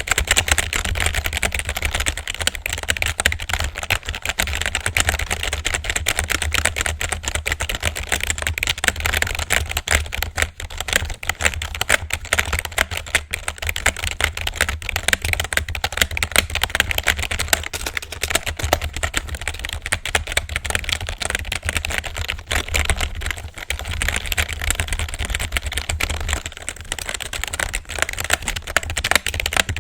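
Continuous rapid typing on a computer keyboard: a dense, unbroken stream of key clicks.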